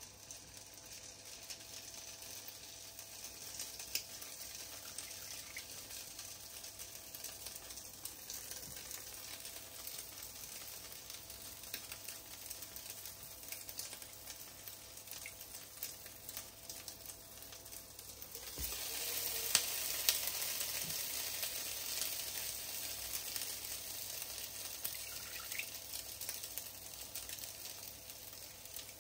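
Egg-and-milk-soaked croissants frying in butter in a pan: a steady sizzle that grows louder about two-thirds of the way through, as another soaked croissant is laid in the hot butter.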